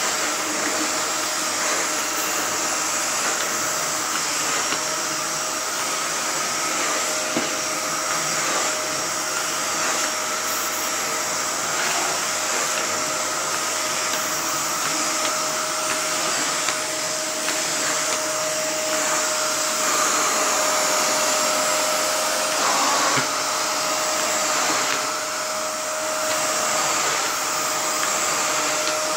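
Miele S5 Cat & Dog canister vacuum cleaner running steadily with its turbo brush head being pushed back and forth over a rug: an even rush of air with a steady whine running through it.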